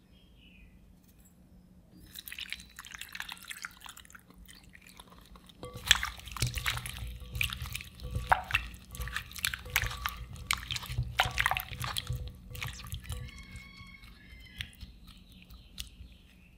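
Gloved hand squeezing and turning raw chicken wings in a wet milk-and-spice marinade in a glass bowl: sticky squelching and wet clicks, starting a couple of seconds in, loudest from about six seconds in and easing off near the end.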